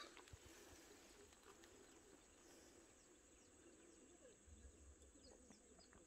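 Near silence: faint outdoor background, with a few brief, faint high chirps in the second half.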